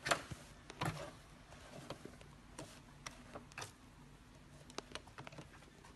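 Light, irregular clicks and ticks from hands working hair wefts and a wig cap under a sewing machine's presser foot, over a faint low hum.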